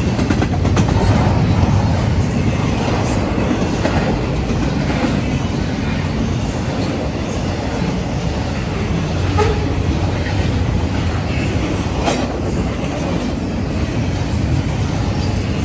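Freight train cars rolling past, a steady loud rumble with wheels clicking over the rail joints.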